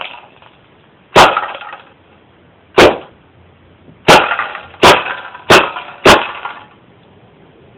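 Tactical Force TF-11 CO2 blowback airsoft submachine gun firing semi-automatic: six sharp single shots at uneven intervals, the last four coming faster, each with a brief fading tail.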